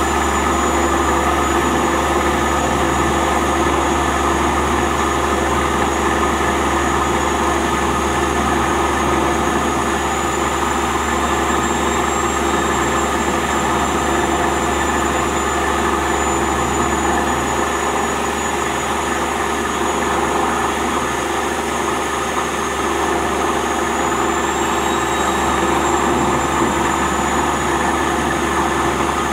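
Plastic film agglomerator running steadily, its motor-driven rotor chopping waste plastic film fed into the drum. A continuous mechanical drone with a low hum and a thin high whine that drifts slightly in pitch.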